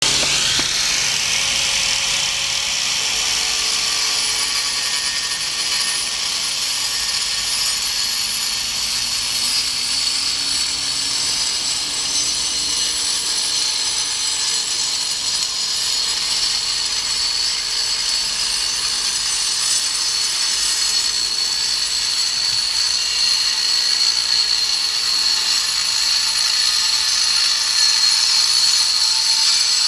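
Handheld angle grinder running continuously with a steady high whine as its disc cuts into a plastered masonry wall, cutting out painted mural fragments so they can be removed; it gets slightly louder near the end.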